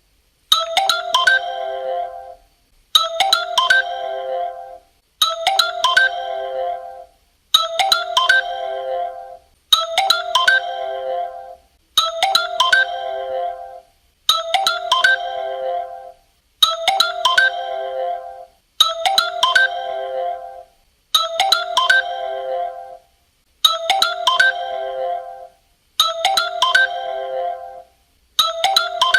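Claro's official phone ringtone: a short melodic phrase repeated over and over, about every two and a quarter seconds, with a brief gap between repeats.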